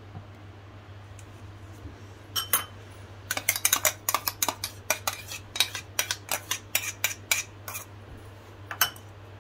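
Steel spoon scraping and knocking inside a stainless-steel mixer-grinder jar, scooping out almond paste. A quick, uneven run of metallic clinks and scrapes starts about two seconds in and thins out with a last clink near the end.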